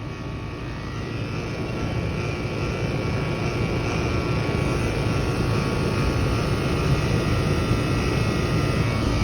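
Central air conditioner's outdoor condensing unit running, a steady fan-and-compressor hum that grows gradually louder. The R-410A system is undercharged, and its compressor sounds rough.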